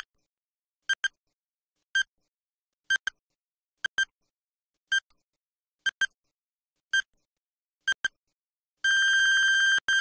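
Countdown timer beeps: a short electronic beep, often doubled, once a second, then one long steady beep of about a second as the count reaches zero.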